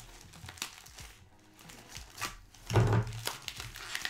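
Clear plastic bag and foam wrap crinkling and rustling as they are pulled apart by hand, with scattered small clicks and a louder low thump about three seconds in.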